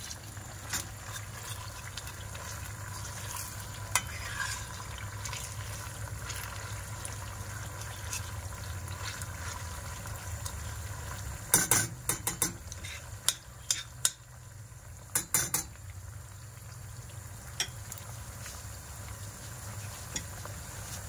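Onions and pepper paste frying in a stainless steel pan with a steady sizzle. Around the middle, a metal spoon stirs and knocks against the pan in a quick run of sharp clinks.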